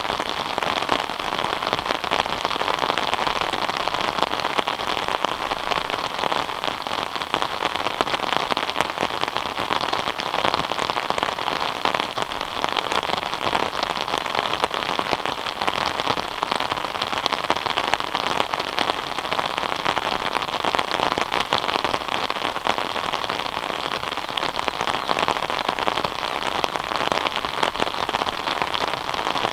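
Steady rain falling, a dense even hiss made up of many fine drops hitting surfaces.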